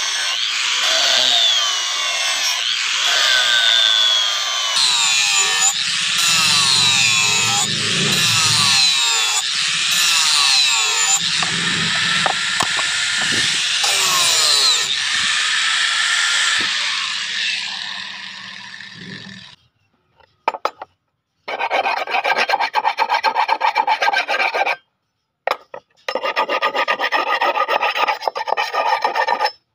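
Angle grinder with an abrasive disc grinding a curved steel knife blade, its whine rising and falling as the disc bears on the metal. About nineteen seconds in the grinder stops, and a hand file rasps along the blade's edge in quick strokes, broken by two short silent gaps.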